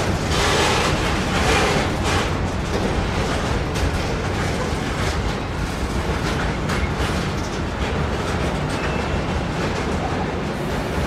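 A train rolling along the rails with a steady low rumble, its wheels clacking over the rail joints now and then.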